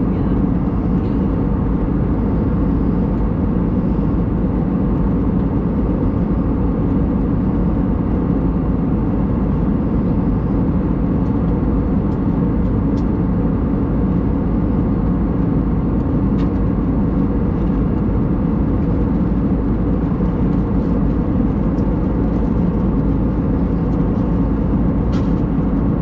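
Steady cabin noise of an Airbus A320neo at cruise: the deep, even rumble of airflow and its CFM LEAP-1A engines, heard from a window seat over the wing, with a few faint clicks.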